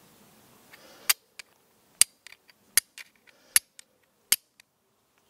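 Flint and steel: a steel fire striker struck against flint, giving a run of sharp clicks. There are five hard strikes roughly 0.8 s apart with lighter ones between, throwing sparks onto charred tinder until one catches as an ember.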